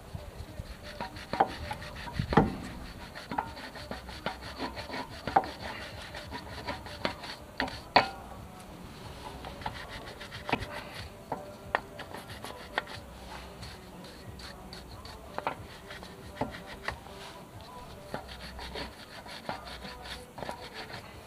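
Hand work on a car's rear disc-brake caliper: irregular scraping and rubbing of a tool against the metal caliper and bracket, with many small sharp knocks. The loudest knocks come about two and a half and eight seconds in.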